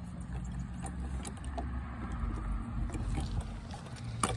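A steady low rumble with faint scattered knocks as a child climbs in a plastic playground climber. A sharper click comes near the end.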